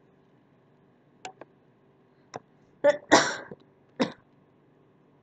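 A person clearing the throat and coughing, several short sudden sounds with the loudest about three seconds in.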